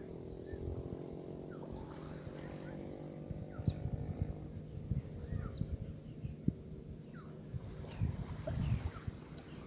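Shoreline ambience over shallow tidal water: a distant boat engine hums and fades out over the first few seconds. Short high chirps are scattered throughout, with irregular low bumps and sloshes of water.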